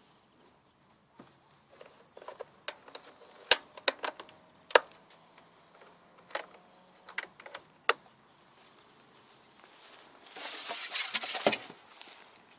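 A wooden beehive lid being set down and fastened: a run of sharp clicks, knocks and metallic clinks from the lid and its metal latch clasps. Near the end comes a louder rustling scrape.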